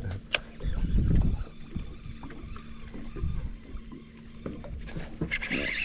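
Wind buffeting the microphone for the first second or so, then a faint steady hum with a few light ticks. Near the end a high, rapidly cycling whir sets in.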